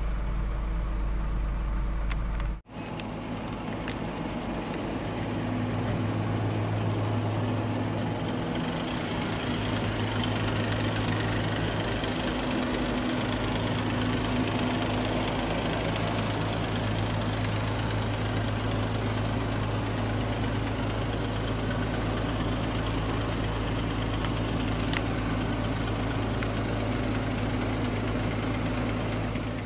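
A kei-truck camper's 660 cc engine idling steadily, with a momentary break about two and a half seconds in.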